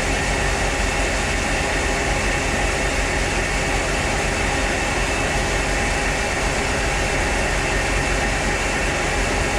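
Steady drone of farm machinery running, a constant hum with no change in pitch.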